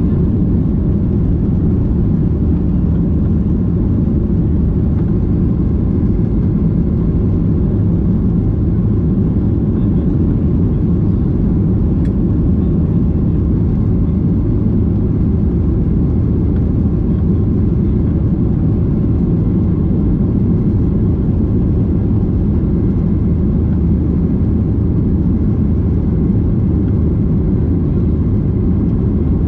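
Boeing 737-800 cabin noise from inside the cabin: the CFM56-7B engines and airflow make a loud, steady low rumble with a faint hum of low tones.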